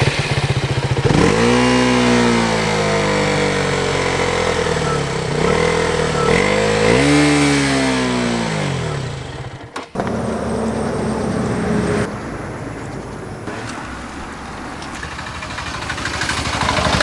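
KTM single-cylinder motorcycle engine on its stock exhaust, revved up twice, the pitch rising and falling over the first nine seconds. After a sudden break about ten seconds in, it idles steadily.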